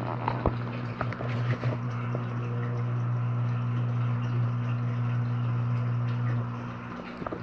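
A steady low hum with a few faint ticks in the first couple of seconds; the hum dips near the end.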